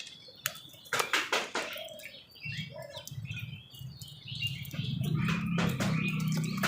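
Crows calling, with a cluster of harsh calls about a second in and scattered shorter calls after it. A low steady hum runs underneath from about halfway.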